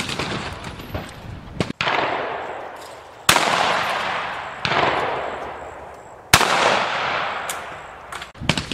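Shotguns firing at clay targets: four shots roughly a second and a half apart, each trailing off in a long echo that fades away.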